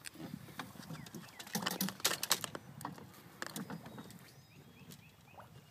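Armadillo swimming at the surface, paddling with its feet: irregular small splashes and sputters of water, busiest about two seconds in.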